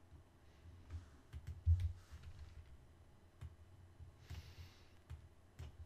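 Scattered computer mouse clicks, single sharp ticks a second or so apart, with a soft breath near the microphone about four seconds in.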